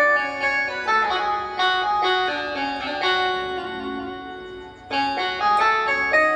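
Roland XPS-10 synthesizer keyboard playing a quick melody of separate notes on a plucked-string voice. The notes fade out about four and a half seconds in and start again half a second later.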